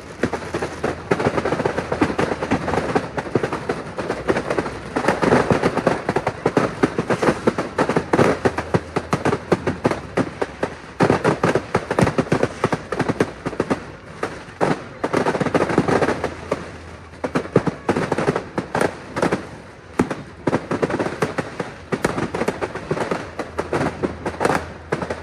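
Fireworks going off in a continuous barrage of rapid bangs and crackling, swelling into louder, denser clusters every few seconds.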